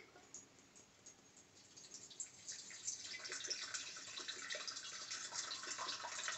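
Vodka poured from a bottle into a glass measuring jug: a steady trickling, splashing stream of liquid that starts about two seconds in.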